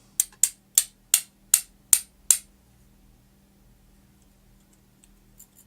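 Seven sharp, quick taps of small hard parts, about two and a half a second, from a lock being taken apart, then only a faint steady hum.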